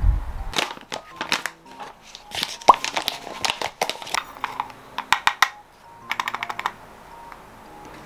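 Clicks, knocks and light clatter of coffee equipment being handled at an espresso machine, with quick rattling runs of small clicks in the second half and a brief rising squeak about a third of the way in.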